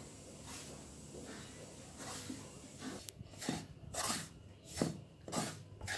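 Wooden spatula stirring and scraping whole-wheat flour around an iron kadai as it roasts, in short strokes about every half second that get louder in the second half.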